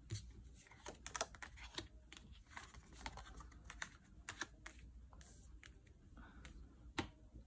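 Faint, irregular clicks and taps of tarot cards being drawn and laid down on a cloth-covered table, with a sharper tap near the end.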